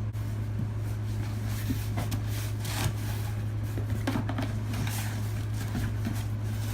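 Steady low hum of background room noise, with a few faint rustles and taps of something being handled about two to four seconds in.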